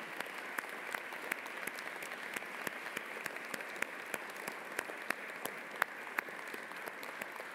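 Congregation applauding steadily, many hands clapping, for the gardeners standing to be recognised.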